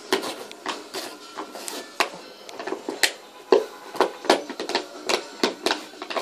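Empty plastic bottle crackling and crunching in a quick, irregular run of sharp clicks as a dog chews and mouths it.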